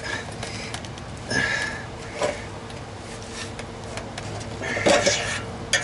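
A few short metallic scrapes and knocks as the old catalytic converter and exhaust pipe are twisted and wiggled by hand at the flange to free them.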